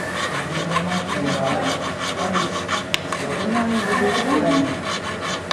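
Needle file rasping back and forth on a small metal jewellery piece held against a wooden bench pin, in quick, regular strokes. One sharp tick about three seconds in.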